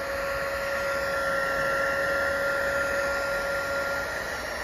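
Heat gun running steadily, a blower hiss with steady whining tones, while it shrinks heat-shrink tubing over solder joints.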